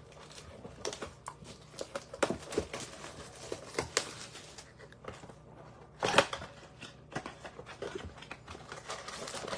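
Crinkling, tearing and clicking of packaging as a blaster box of trading cards is opened and its foil packs handled, in irregular short crackles with a louder one about six seconds in.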